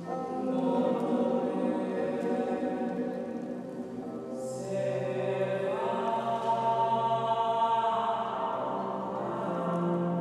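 Experimental drone music: layered, sustained chant-like tones ringing in a very reverberant concrete church. About halfway through there is a short hiss and the tones step up in pitch, then they thin back to a low hum near the end.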